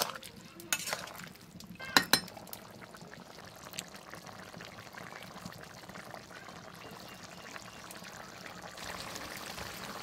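Metal ladle stirring chicken curry in an aluminium kadai, knocking and clinking against the pan a few times in the first two seconds, with two sharp strikes about two seconds in. After that the curry simmers with a steady bubbling hiss.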